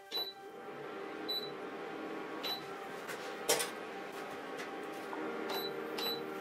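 Induction hotplate beeping as its touch buttons are pressed: short high beeps, two in the first second and a half and two more near the end. A single knock about halfway through as a piece of metal is set down on the glass top.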